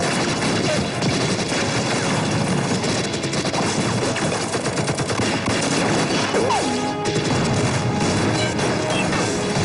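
Continuous battle gunfire: dense volleys of rifle and machine-gun shots with crashes, under a music score.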